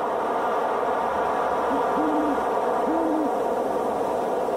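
An owl hooting: a short low note, then two longer hoots about a second apart, over a steady rushing background noise.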